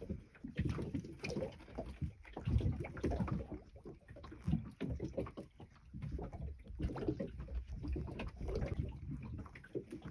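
Water lapping against the hull of a small wooden fishing boat, with uneven low rumbling gusts of wind on the microphone.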